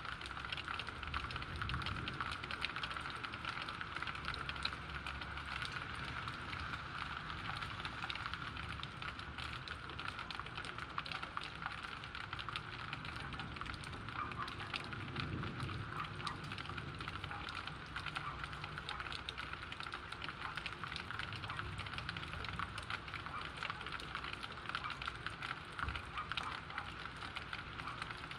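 Rain falling steadily, a dense even hiss full of fine drop ticks. A brief low rumble comes about halfway through.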